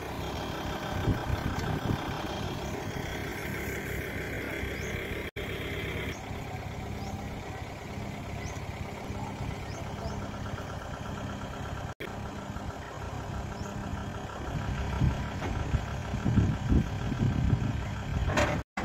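Diesel engine idling steadily, with louder gusts of low rumble near the end.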